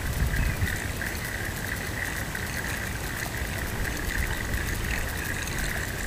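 Live Target Mullet rattle lure rattling steadily as it is retrieved across the water surface, over a low rumble.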